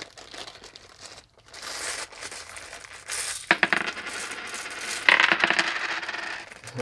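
A plastic coin bag crinkling, then a heap of 50-cent euro coins pouring out of it into a hand, clinking and jingling in dense bursts, with a few spilling onto the table.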